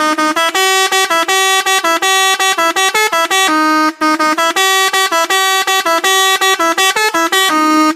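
Telolet musical air horn playing a fast tune of short, rapid notes, with a longer held note partway through and another near the end, then cutting off suddenly. Loud.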